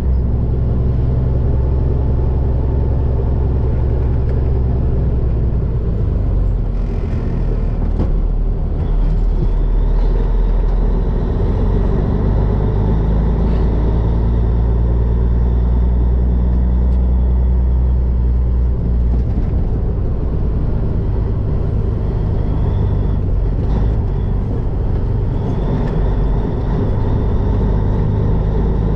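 Diesel engine of a 1984 Peterbilt 362 cabover truck running under way at road speed, with steady road noise; the engine's pitch shifts a few times along the way.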